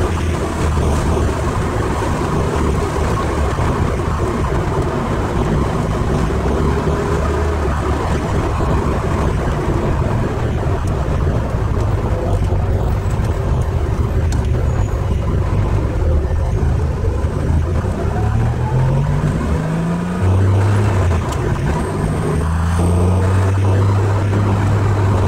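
Ferrari 308 GTSi's V8 engine heard from inside the cabin, running steadily under way with road and wind noise. Twice near the end the engine note rises as the car accelerates.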